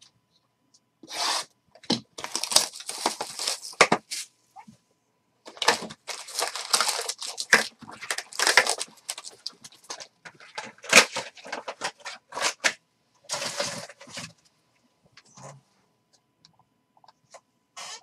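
A sealed box of trading cards being torn open, then foil card packs crinkling as they are pulled out of the box and stacked. There are two long spells of crackling and tearing, with quieter handling near the end.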